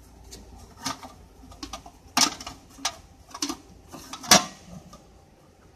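Cessna 172N propeller spinner being worked onto its mounting bulkhead: irregular knocks and clicks of the shell against the hub, with two louder knocks about two and four seconds in.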